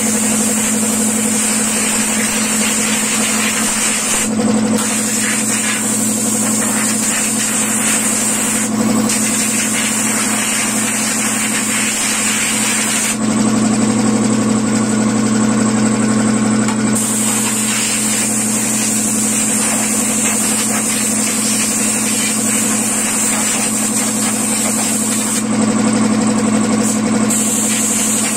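Electric air compressor running steadily while compressed air hisses from a hose nozzle, blowing water out of a washed audio mixer. The hiss stops briefly a few times, for about four seconds from around the middle, while the compressor keeps running.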